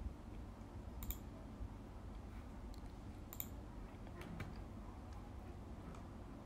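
A few faint computer mouse clicks, about four, spread over a few seconds, over a low steady hum.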